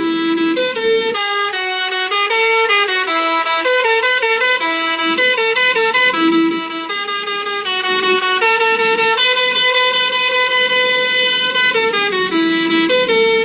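Basuri-type telolet bus horn playing a melody: a string of steady, reedy notes stepping up and down, with one note held for a few seconds past the middle.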